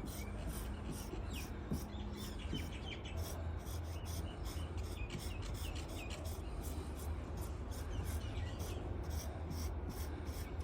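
Quick, repeated rubbing strokes on a lacquered wooden tabletop as scratch-fix pen colour is worked into a mark and the excess is wiped off lightly.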